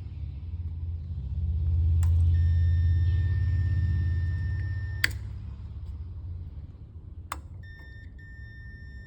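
A switch clicks and a continuity tester sounds a steady high beep for about three seconds until a second click cuts it off; a few seconds later another click starts the beep again, with a brief break near the end. A steady low hum runs underneath, louder in the first half.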